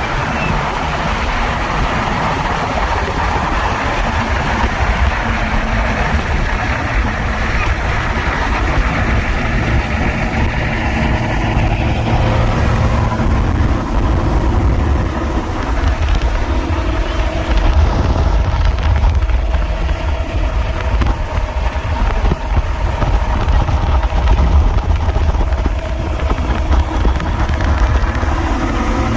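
Cars rolling past with steady engine rumble, and wind buffeting the microphone throughout.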